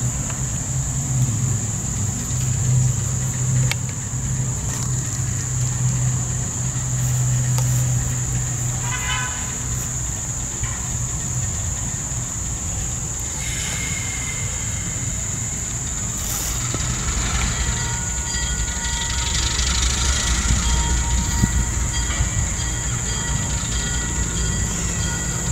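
Diesel switcher locomotive engine idling with a steady low hum, then running deeper from about halfway through. A train horn sounds twice in the second half, a short blast followed by a long held one that runs to the end.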